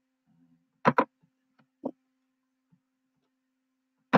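Computer mouse clicking: a quick press-and-release pair about a second in, then one softer click near two seconds, over a faint steady low hum.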